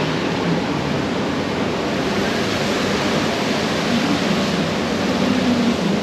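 Steady rush of flowing water in a river rapids ride channel, carrying a round raft boat along.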